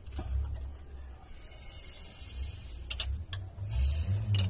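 Mechanical clicks and rasping as the engine is turned over by hand at the crankshaft pulley, bringing the next cylinder up for valve clearance adjustment. There is a sharp click about three seconds in and another near the end.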